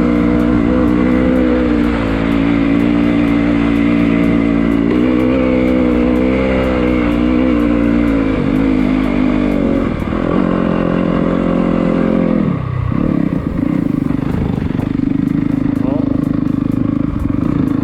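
2024 Yamaha YZ250FX's 250cc four-stroke single-cylinder engine running under way, its pitch rising and falling with throttle and gear changes, then dropping to a steadier, lower note about thirteen seconds in. Wind rushes across the helmet-mounted microphone.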